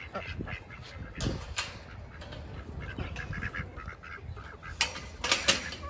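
Domestic ducks quacking in a run of short, repeated calls, with a few sharp rattling noises about a second in and again near the end.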